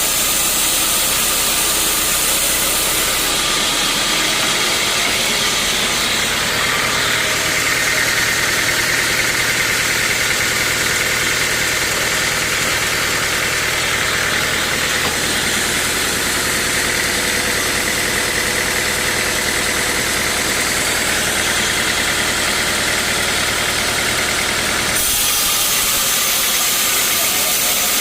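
Sawmill machinery running steadily: a loud, continuous mechanical noise with a low hum under a broad hiss, which changes abruptly about three seconds in and again near the end.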